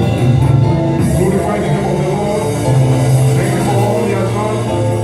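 Live worship band music with steady held chords and a strong bass line.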